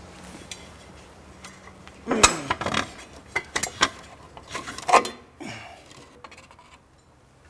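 Plastic parts of a snorkel-top cyclonic air pre-cleaner being pulled apart and handled: rubbing, scraping and clattering, loudest about two seconds in and again around five seconds, then quieter.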